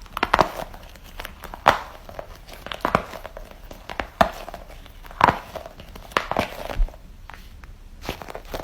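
Novelty "gobble ball" toys making their odd sound: a run of sharp, crackly clicks, roughly one or two a second, each with a short ring.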